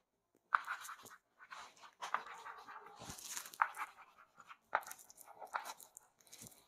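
Chalk writing on a chalkboard: faint, irregular short scratches and taps as letters are written.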